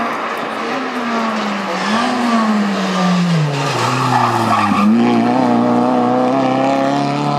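Hyundai i20 rally car's engine falling in pitch as it brakes and shifts down, with tyres squealing through a hairpin about halfway through. The engine then pulls away on a steadier, slightly rising note.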